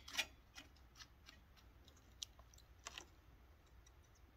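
A cat pawing at water in a shallow plastic tray: a string of faint, sharp taps and light splashes, about eight in the first three seconds, the strongest right at the start.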